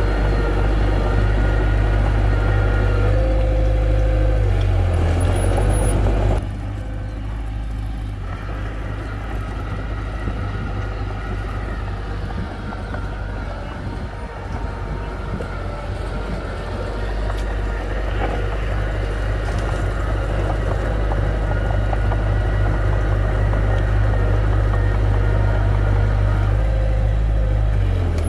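Heavy machinery engine running steadily: it drops suddenly about six seconds in, then slowly builds back up.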